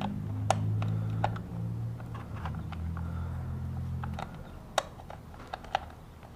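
A few sharp metallic clicks and clinks from a bolt and hand tools being worked while trying to get the bolt to thread. Under them is a low steady hum that stops about four seconds in.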